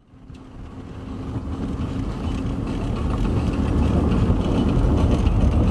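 Car driving on a dirt road, heard from inside the cabin: a steady low rumble of engine and tyres that fades in over the first couple of seconds.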